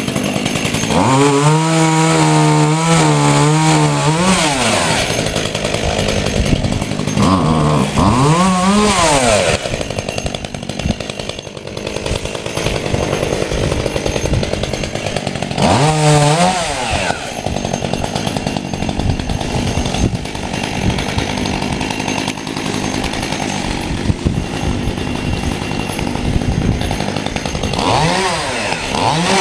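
Hand-held chainsaw cutting garden tree branches. Its motor pitch rises and falls four times as the saw is sped up into the cuts and eased off.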